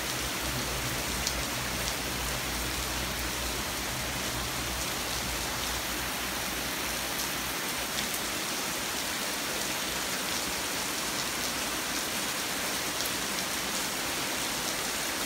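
Heavy rain pouring down in a severe thunderstorm: a steady, even hiss of a downpour hitting the ground.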